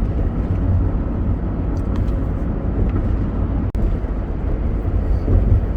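A motor vehicle running steadily, a low rumble with a faint steady hum, broken once by a brief click a little past halfway.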